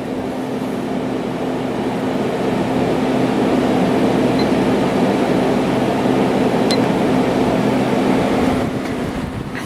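Hampton Bay 5,100 BTU window air conditioner, made by Fedders, running with its compressor on and its fan on high speed: a steady rush of air over a low hum. The sound builds over the first few seconds as the fan speeds up and eases off near the end.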